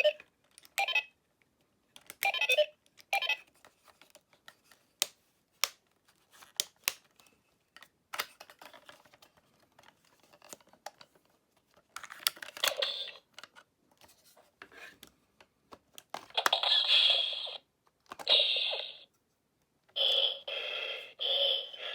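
Plastic clicks of a Buzz Lightyear action figure's buttons and moving parts being worked, then several short electronic sound effects from the toy's small speaker, the longest and loudest in the last few seconds.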